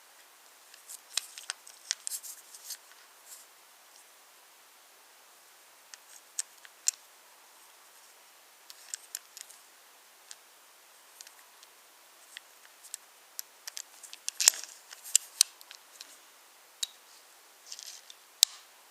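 Wooden toy trains and wooden track pieces clicking and clacking. The clicks are sharp and irregular, come in clusters, and are loudest about fourteen to fifteen seconds in.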